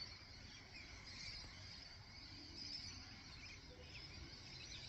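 Faint outdoor ambience: insects chirring steadily, with a few faint bird chirps over a low background rumble.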